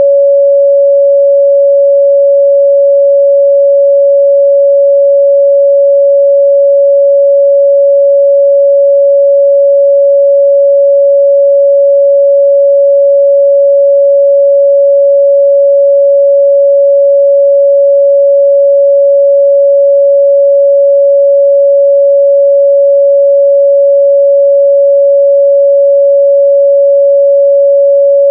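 A pure 561 Hz sine-wave test tone, held loud and perfectly steady at one pitch with no harmonics.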